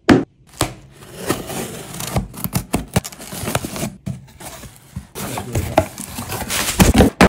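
A cardboard box set down with a thump on a wooden table, then packing tape torn off its top in a run of scrapes and tearing. Near the end the cardboard flaps are pulled open and the plastic packing inside rustles.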